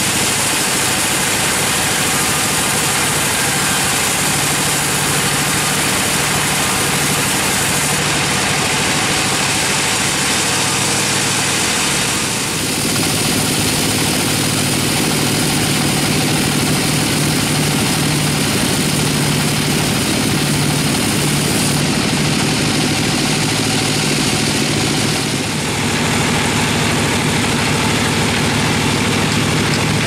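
Band sawmill running, its blade cutting through a large gmelina (white teak) log, with the steady drone of the mill's drive underneath. The sound changes character about twelve seconds in and again near twenty-five seconds.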